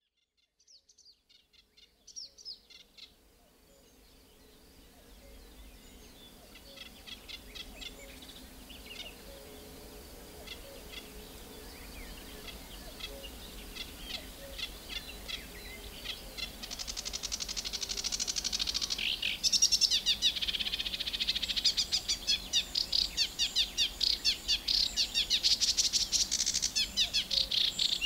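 Eurasian reed warbler singing: a rapid chattering stream of short repeated notes. It fades in at the start and grows louder and denser from about halfway through.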